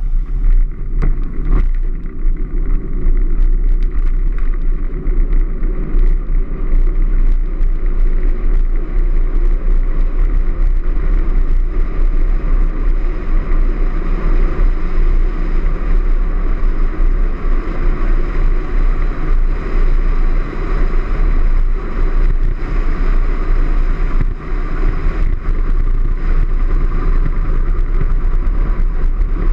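Steady rushing noise of an engineless soapbox sidecar coasting downhill on tarmac: wind over the onboard camera and the wheels rumbling on the road surface. It comes up suddenly as the cart sets off, with a few knocks and rattles in the first couple of seconds.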